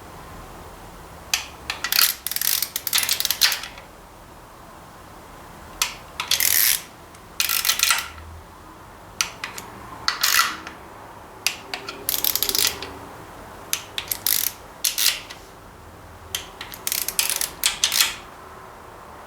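Inch-pound torque wrench ratcheting in short bursts of rapid clicks, over and over, as bolts are run down and tightened to about 80 inch-pounds.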